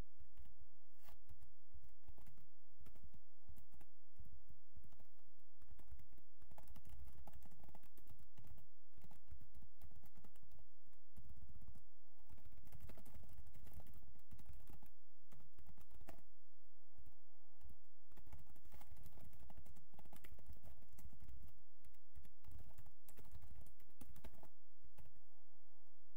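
Computer keyboard typing in quick runs of keystrokes, broken by short pauses.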